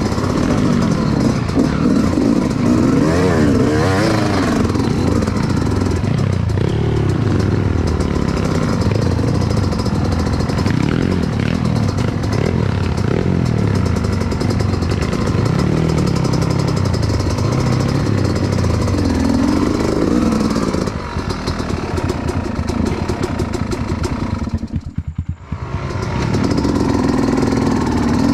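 Dirt bike engines revving and running under load while riding off-road. One is a Yamaha YZ250X two-stroke fitted with an FMF full-system exhaust. Near the end the sound drops away briefly, then the engine picks back up.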